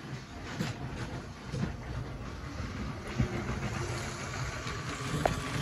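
Lego train running on its plastic track: a steady low rumble of motor and wheels, with a few faint clicks.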